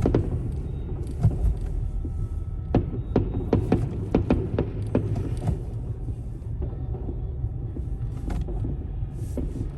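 Steady low road rumble of a car, heard from inside the cabin, with scattered sharp pops and bangs of fireworks going off outside, most of them in the first half.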